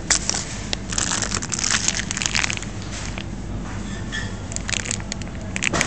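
Irregular crinkling, crackling rustle in uneven bursts, with a few sharp clicks.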